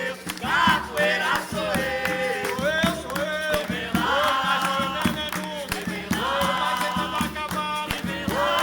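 Capoeira roda music: voices singing over berimbau and percussion, with sharp percussive strokes in a steady rhythm.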